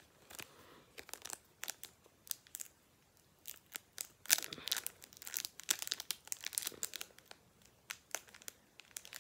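Foil wrapper of a Pokémon booster pack crinkling and tearing as it is picked at and pulled open by hand. The crackles come in scattered bursts, thickest in the middle.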